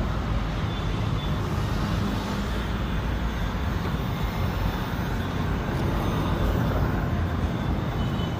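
Handheld heat gun blowing steadily with an even whoosh and a low motor hum, warming the polish on a greased leather work boot to bring up its shine.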